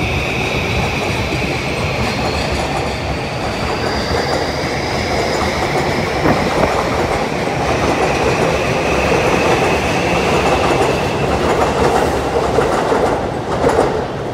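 Yamanote Line E235-series electric train pulling out of the station. The traction motor whine rises in pitch as it accelerates, over wheel rumble and clickety-clack as the cars roll past close by, with a few louder clacks near the end as the last car goes by.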